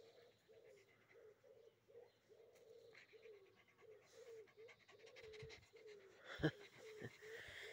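A dog panting softly close by, a faint pitched sound on each breath about three times a second. A single sharp knock about six and a half seconds in is the loudest moment.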